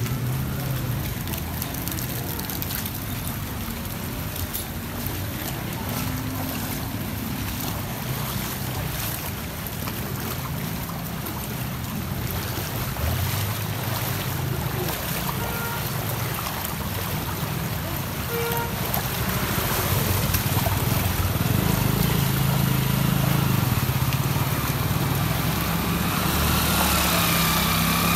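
Feet wading and splashing through muddy floodwater on a street, under a steady wash of motor vehicle engines. The engines grow louder over the last several seconds.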